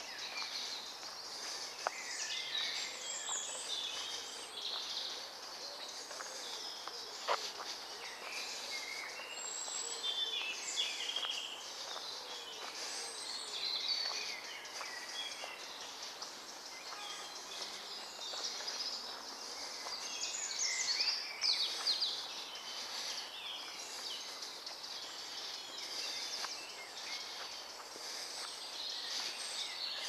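Woodland birdsong: several songbirds singing and calling over one another in quick chirps and trills, with a few sharp clicks.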